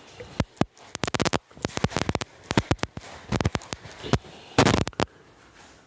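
A rapid string of sharp, gunfire-like pops in several quick volleys, like a semi-automatic rifle being fired fast.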